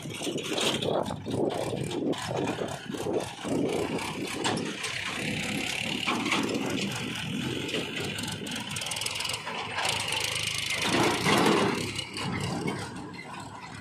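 Diesel farm tractors (a Mahindra and a Sonalika) running as they drive past pulling trailers, engine sound rising and falling. It is loudest as one passes close near the end.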